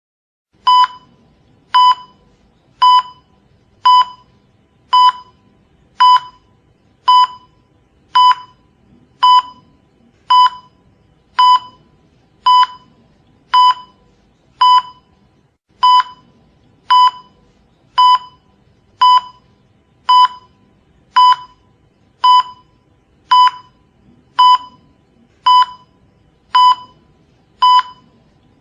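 Cardiac monitor pulse beep: a short pitched beep repeating steadily about once a second, a slow, regular heart rhythm. It starts a little under a second in, after silence.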